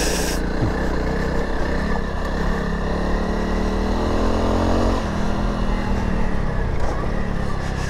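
Honda CRF300 Rally's single-cylinder four-stroke engine pulling the bike along slowly, its pitch climbing gently, then dropping sharply about five seconds in before running on steadier.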